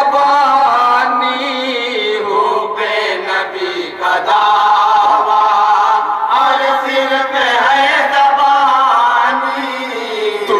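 A chorus of men chanting a devotional naat together into a microphone, voices only, the melody rising and falling in long sung phrases.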